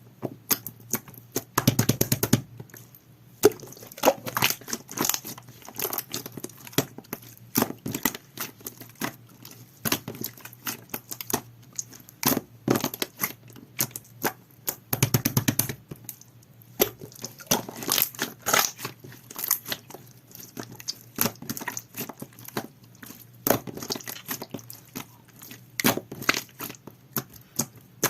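Clear, jelly-textured slime being squeezed and poked by hand, giving sharp popping and clicking sounds as trapped air bursts. Every few seconds there is a quick flurry of pops.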